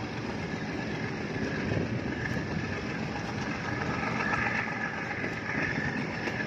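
Passenger train rolling slowly along, a steady running noise of its wheels on the rails heard from the coach's open doorway.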